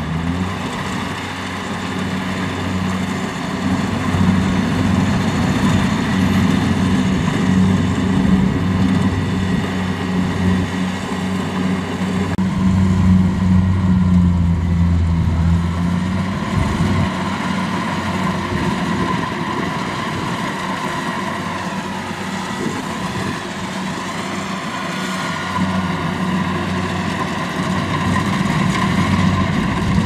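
Kubota DC-70 combine harvester's diesel engine and threshing gear running steadily while it cuts rice: a continuous low hum that shifts a little in pitch and level a few times.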